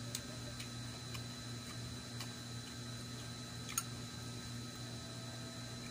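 A few faint, sharp clicks and one brighter clink about four seconds in, over a steady low hum: crispy chicken-skin chicharon pieces and a spoon handled against glass bowls.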